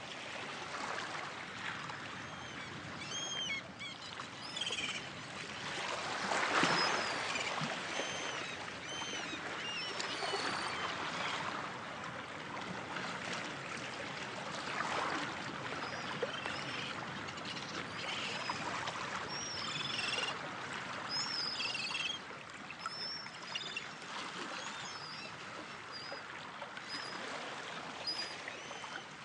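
Water rushing in slow swells, like surf or a stream, with many short, high bird chirps and calls over it throughout.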